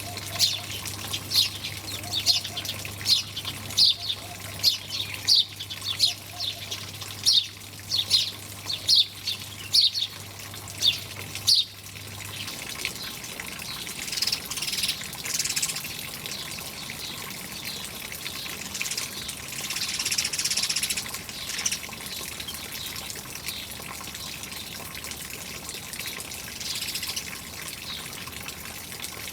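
Small birds chirping, a quick string of short, high, repeated chirps, over steadily trickling water. About twelve seconds in the chirping stops and the running water goes on alone, swelling louder a couple of times.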